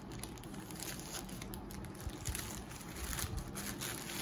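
Scissors cutting a plastic courier mailer, then the mailer's thin plastic crinkling and rustling as a hand reaches inside; a dense run of irregular crackles.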